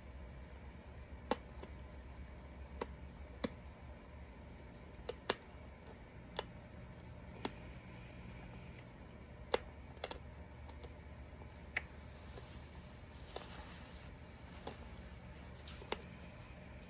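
Sharp little mouth clicks and smacks, irregular and about one every second or two, from sucking on a hard violet mint candy. A steady low hum of room noise runs underneath.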